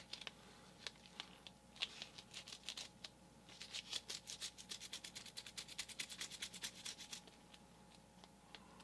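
Nitrile-gloved hands rubbing on a paper towel and handling epoxy putty: faint rustling and crackling, with a fast, even run of soft ticks from about three and a half to seven seconds in.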